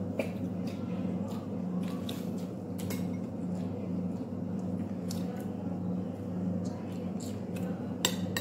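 Close-up eating sounds: a person chewing and biting noodles and dried fish, with scattered small clicks and one sharp click near the end, over a steady low hum.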